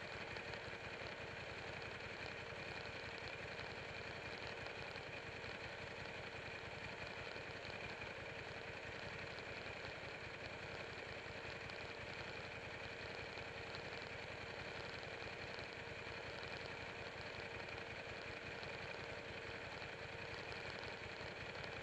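Buell 1125R's V-twin engine idling steadily while the motorcycle stands still.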